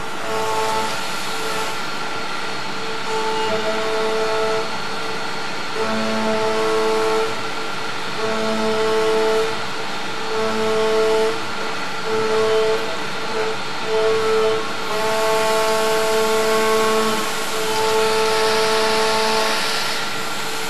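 CNC milling machine's end mill cutting a steel block at high speed. A pitched cutting whine with several notes switches on and off every second or so as the tool enters and leaves the cut, over a steady hiss of machine noise and flying chips.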